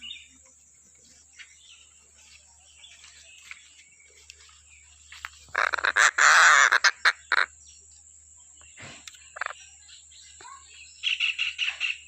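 Tengkek buto (a kingfisher) calling: one loud, harsh call lasting over a second about halfway through, then scattered short calls and a quick run of high notes near the end. A steady high-pitched whine runs underneath.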